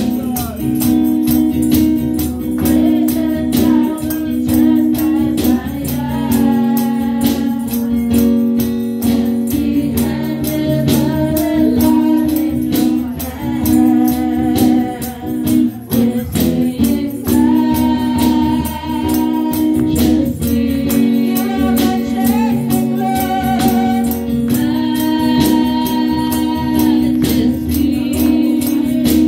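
Gospel worship music: a woman sings through a handheld microphone, amplified, over held chords and a steady shaken-percussion beat.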